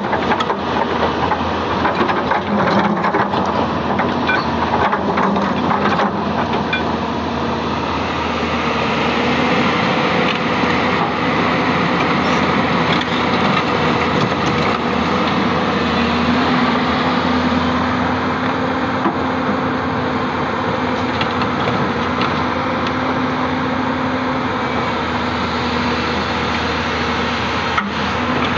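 Hyundai 220-9S crawler excavator's diesel engine running steadily under hydraulic load. Stones clatter and knock against the bucket, most often in the first several seconds.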